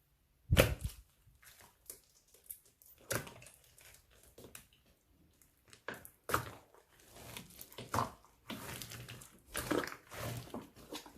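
Hands squishing and poking fluffy slime: irregular sticky squelches and pops. The loudest comes about half a second in, and the sounds grow denser in the last few seconds.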